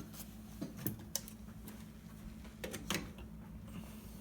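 A handful of light clicks and taps, scattered over a few seconds, from hands handling the opened Yamaha CR receiver and its inner cover, over a faint steady hum.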